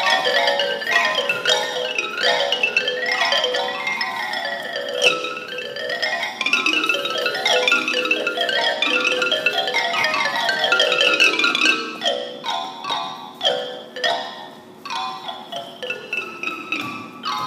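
Ranat ek, the Thai boat-shaped xylophone, played solo with mallets in fast runs that sweep up and down the keyboard; about twelve seconds in the playing thins to separate, quieter strikes.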